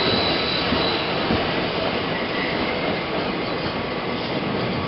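New York City subway train running, a steady rumble and rush of wheels on the track, with a thin high wheel squeal in the first second that fades away.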